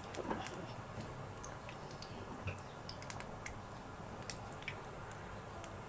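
Gulab jamun dough balls frying gently in warm ghee: a faint, low sizzle with scattered small pops and ticks.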